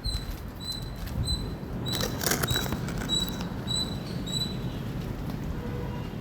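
Squirrel chirping: a steady series of short, high chirps repeated about twice a second. A brief rustling crackle comes about two seconds in.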